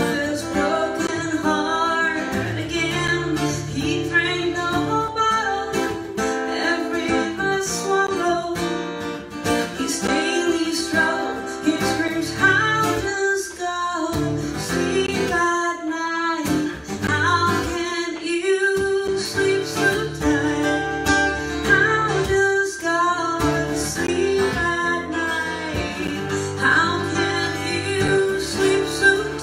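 Gibson acoustic guitar strummed steadily while a woman sings over it.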